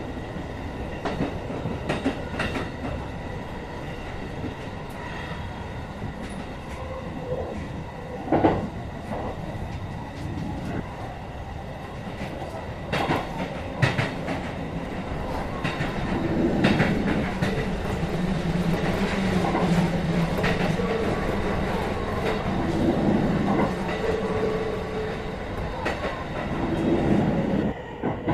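Electric commuter train running along the track, heard from inside the train: a steady rumble of wheels on rails with occasional sharp clacks over rail joints. It grows louder about halfway through, with a low wavering hum.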